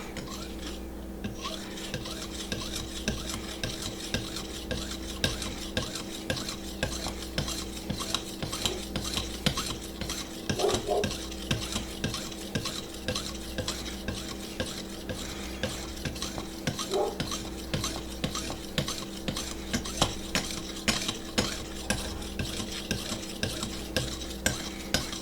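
Knife edge being stroked over lapping film on a Vipersharp guided sharpening system: quick, repeated light scraping strokes as the steel of the bevel is polished.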